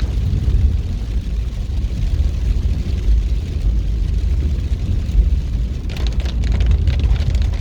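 Steady low rumble of a car driving slowly through heavy rain, heard from inside the cabin, with the hiss of rain and tyres on a wet road. A scatter of short knocks comes in near the end.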